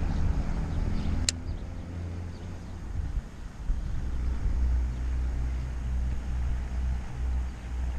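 Wind rumbling on the microphone, with a faint whir that fades over the first two seconds and a single sharp click just over a second in.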